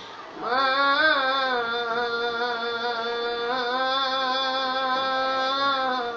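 A boy singing a manqabat, an Urdu devotional song. After a short breath he holds one long note, bending up slightly about a second in, and stops just before the end.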